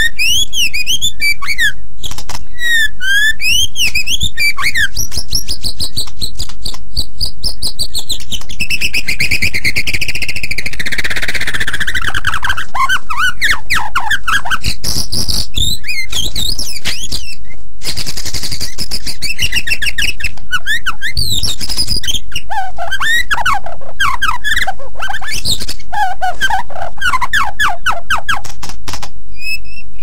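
White-rumped shama singing a continuous, varied song of clear whistles, slurred notes and fast chattering trills. About a third of the way in, a quick run of notes falls steadily in pitch.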